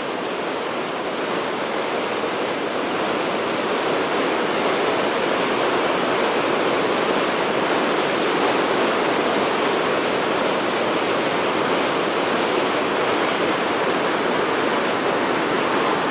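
Floodwater pouring from a reservoir outlet during a spillway release: a steady, heavy rush of water that grows a little louder over the first few seconds.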